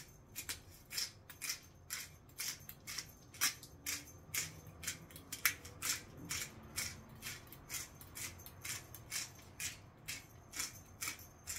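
Black pepper being dispensed over meat: short, crisp strokes repeating about two to three times a second.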